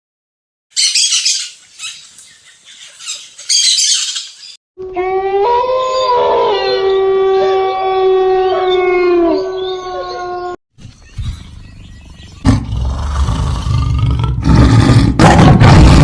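A run of separate animal calls cut one after another: first a few sharp hissing bursts, then a long pitched call with several overtones lasting about six seconds, then a loud deep roar-like sound that grows louder near the end.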